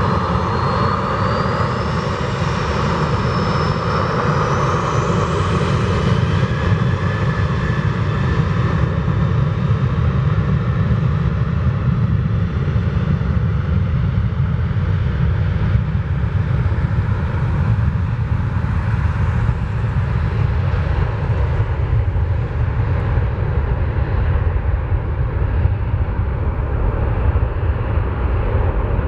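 Boeing 747-8F freighter's four GEnx turbofan engines on final approach: a loud, steady jet rumble, with a thin high fan whine that climbs in pitch over the first several seconds.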